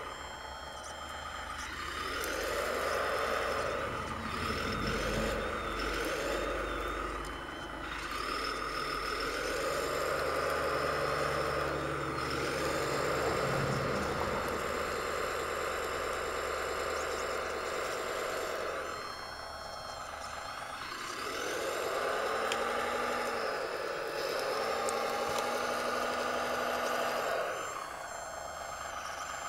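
Radio-controlled model CAT 963B track loader working dirt: its motors whine in spells of a few seconds, the pitch swelling up and falling back, with brief lulls about eight seconds in and again around twenty seconds in.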